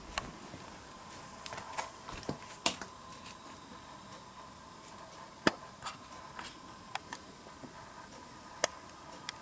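Scattered sharp clicks and ticks at irregular intervals, a few much louder than the rest, over a faint steady hum.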